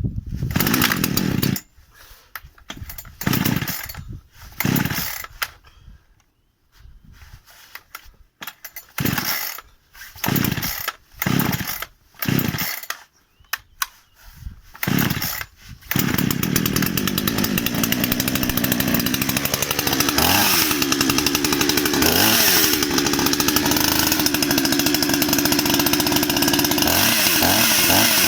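A new Kalibr two-stroke petrol chainsaw being pull-started for its first run: about ten pulls on the starter cord, each giving a short burst of noise, until the engine catches about two-thirds of the way in and runs steadily, revved briefly a few times.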